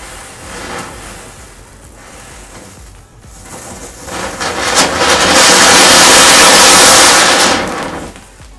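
A Diwali firework, set off by a burning matchstick chain, catches about four seconds in. It sprays sparks with a loud, rushing hiss for about three seconds, then dies away.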